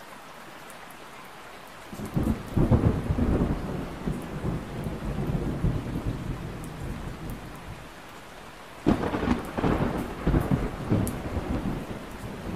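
Thunderstorm: steady rain falling, with two rolls of thunder, the first about two seconds in and the second near nine seconds, each rumbling on for a few seconds.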